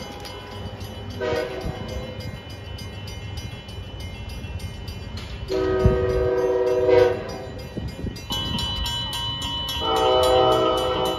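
Passing train's air horn sounding a series of blasts, each a chord of several notes: a short one about a second in, a longer one in the middle, and another near the end. A steady high tone joins from about eight seconds in.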